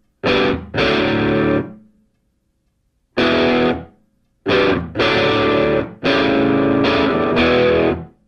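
Background music: a distorted electric guitar playing stop-start chord hits, each ringing for about half a second to a second with short silences between them, with a longer gap near the start.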